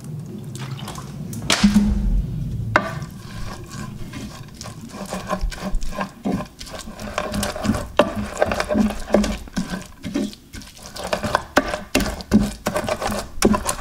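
A little water is poured onto coarsely ground peanut paste in a terracotta cobek (flat clay mortar). Then a pestle mashes and grinds the wet paste against the clay with a run of irregular scrapes and knocks.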